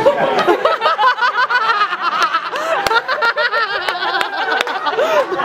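An audience laughing, many voices at once, with a few sharp clicks among them.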